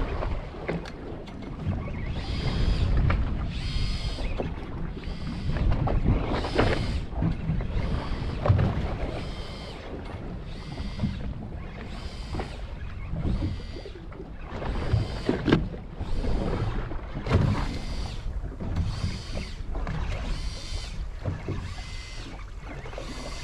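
Offshore jigging reel being cranked to wind in a hooked fish from depth: a whirring that rises and falls in a steady rhythm, about once every one and a half seconds, over the boat's low rumble and wind noise.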